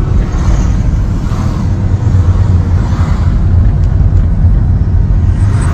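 Steady, loud rumble of a car driving at speed, heard from inside the cabin: engine and tyre noise.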